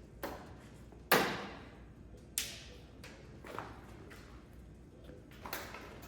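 A few sharp snips and clicks from hand tools working on a car's wiring harness: the loudest about a second in, a second one just over a second later, and fainter ones after.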